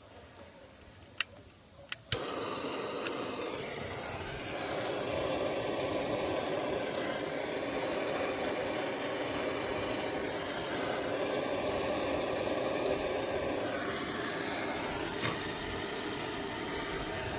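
A few sharp clicks, then about two seconds in a handheld heating tool starts with a steady hissing rush that runs on. The tool is heating a wire splice on a 2000 Cadillac Escalade's wiring during a soldering and heat-shrink repair.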